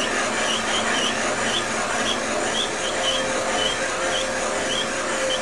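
A Sunnen VGS20 seat and guide machine is turning a profile cutter, cutting a new enlarged intake valve seat in a Fiat X1/9 aluminium cylinder head. It makes a steady machine whir with a light squeak repeating about twice a second.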